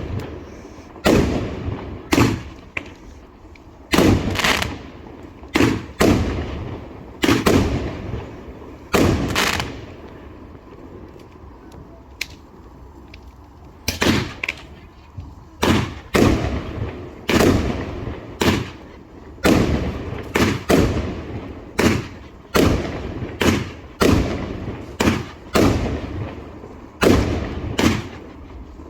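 A professional-style firework show going off: a long run of sharp bangs, one or two a second, each fading quickly. Near the middle there is a lull of a few seconds with only a couple of small pops, then the bangs come thick and fast again.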